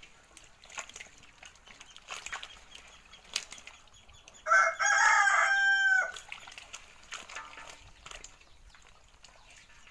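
A rooster crows once, about four and a half seconds in, for about a second and a half. Around it are faint scattered wet clicks and rustles from fish being handled in a metal basin.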